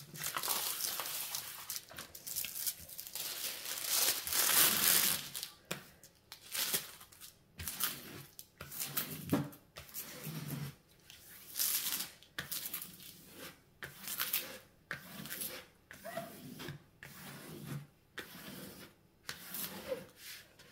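Clear plastic protective film being laid back over a diamond painting canvas and smoothed flat by hand: the film crinkles and rustles, heaviest in the first few seconds, then a series of short rubbing swipes about once a second.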